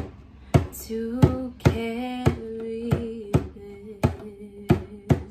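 Djembe hand drum struck with the bare hands at about two hits a second, under a woman's solo singing voice holding long notes.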